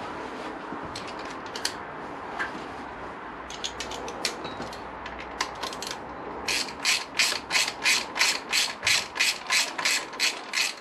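Hand socket ratchet clicking as it runs down the bolts of the top cam chain tensioner guide on a Honda VFR800 engine. A few scattered clicks come first, then from about six seconds in a steady run of clicks about four a second, the ratchet being swung back and forth.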